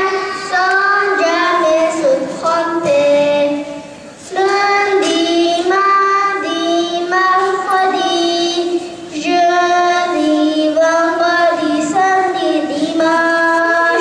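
A young girl singing a song solo into a microphone, holding steady notes in phrases, with a short break about four seconds in.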